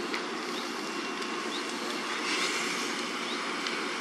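Large caravan fire burning: a steady rushing noise with scattered crackles and pops, briefly louder about two seconds in.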